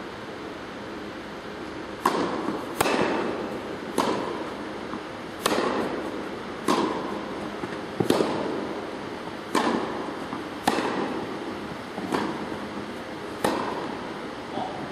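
Tennis rally: about ten sharp pops of the ball struck back and forth by rackets, roughly one every second and a half, each echoing in an indoor tennis hall.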